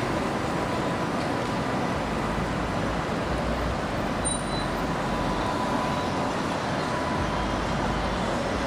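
Steady city street traffic noise, an even rush with no distinct passing vehicle.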